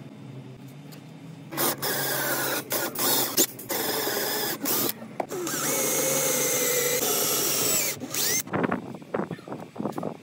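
Power drill boring into the end grain of a wooden stick with a twist bit. It is switched on in several short bursts, then run steadily for about three seconds. A few light clicks and taps follow near the end.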